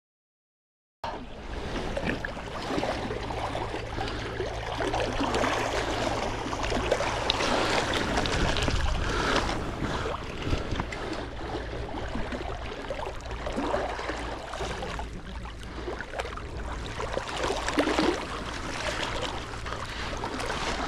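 Sea water lapping and sloshing in a steady wash, with a faint low hum underneath, starting after about a second of silence.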